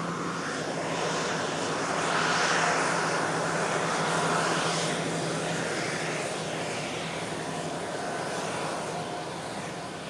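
Business jet's engine noise as it moves along the runway: a continuous roar that builds to its loudest a couple of seconds in and then slowly eases, with a steady low hum under it for the first half.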